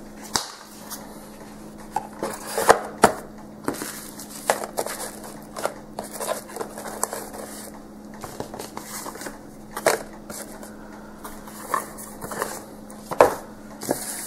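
Packaging being handled: cardboard box, paper and plastic wrap rustling and crinkling, with scattered taps and a few sharper knocks. A faint steady hum runs underneath.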